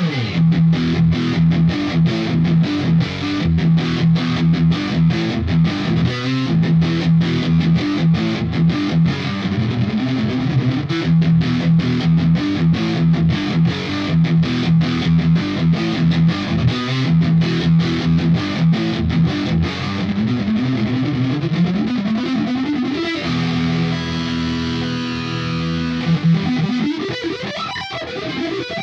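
Squier Affinity Stratocaster electric guitar through a distortion amp-modeller sound, playing a rhythmic riff of repeated low-string notes. About 21 s in a note slides upward into held chords, and another upward slide comes near the end.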